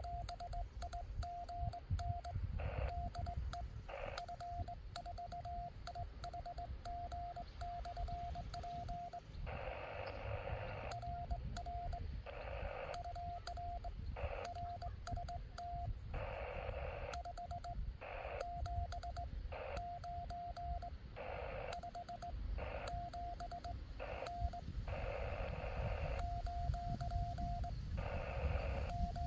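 Morse code (CW) sent on a portable HF transceiver: the key is heard as a steady sidetone beeping dits and dahs, with short bursts of radio hiss in the pauses between words. A low rumble runs underneath.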